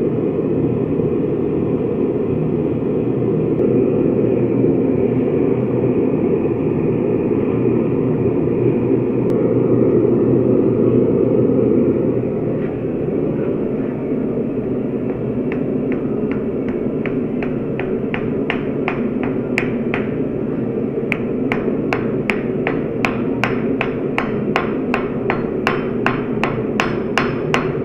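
Forge running with a steady rushing noise throughout. From about halfway, a hand hammer strikes hot steel at roughly two to three blows a second, forge-welding the stacked bars into a billet for shear steel.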